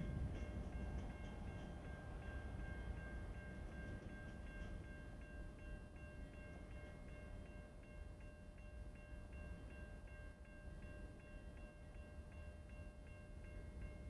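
A freight train's rumble fades over the first couple of seconds as its last cars clear the grade crossing. The crossing's warning bell keeps ringing throughout in a steady, even rhythm.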